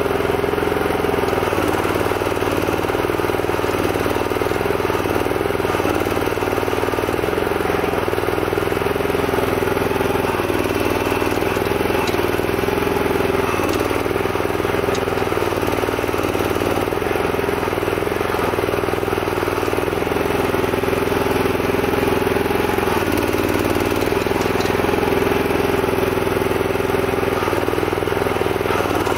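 Homemade mini excavator's 11-horsepower Honda-type single-cylinder petrol engine running steadily while it digs. Its note dips briefly and recovers every few seconds as the hand-worked valves put the belt-driven hydraulic gear pump under load.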